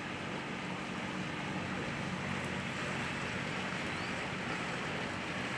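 A boat's engine running with a low steady hum under a hiss of water and wind; the hum fades in the second half.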